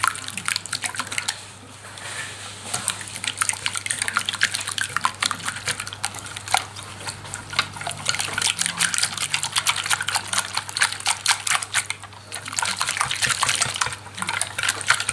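A wire whisk beating a runny egg, white wine and cornflour mixture in a glass bowl: rapid wet ticking and splashing as the wires hit the bowl, pausing briefly about two seconds in and again near twelve seconds. The mixture is being whisked smooth to break up lumps.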